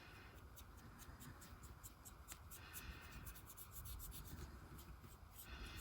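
Faint, soft scratching and rubbing with light ticks: chrome powder being rubbed onto a cured gel nail.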